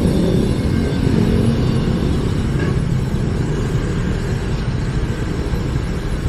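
KYMCO Xciting 400 scooter under way: a steady low rumble of engine and wind noise on the microphone.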